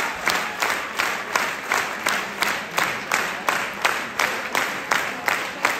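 Concert audience clapping together in a steady rhythm, about three claps a second, over the general noise of the crowd.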